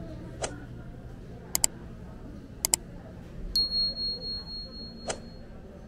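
Sharp clicks, one and then two quick pairs, followed by a struck, bell-like ding: a clear high ring that holds one pitch and wavers as it fades over about two seconds, over low market background noise.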